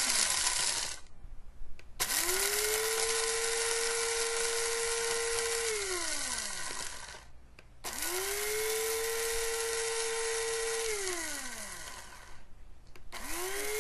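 Bodum Bistro electric blade coffee grinder grinding whole coffee beans in pulses: its motor whines up to speed, runs steadily for about four seconds, then winds down with a falling pitch when the button is released. One pulse is winding down at the start, two full pulses follow, and another starts near the end.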